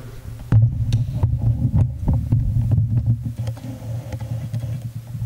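Handling knocks and clicks as a camera is moved and set in place, a quick cluster in the first three seconds, over a steady low hum.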